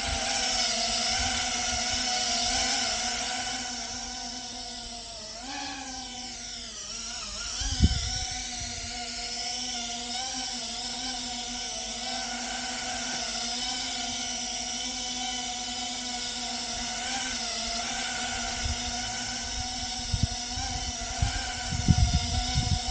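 Small brushless FPV quadcopter, a GEPRC Phantom, flying with a steady buzzing whine from its propellers and motors. Its pitch dips and wavers about five to seven seconds in. There is a sharp thump about eight seconds in and a few low thumps near the end.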